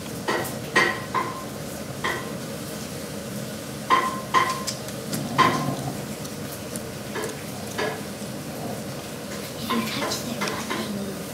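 Scattered light clinks and taps of kitchenware, about a dozen spread unevenly, several with a brief ringing tone.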